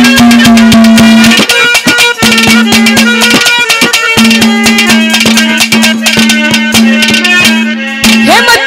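Haryanvi ragni folk accompaniment playing an instrumental interlude: rapid hand-drum strokes under one long held melody note that breaks off briefly a few times.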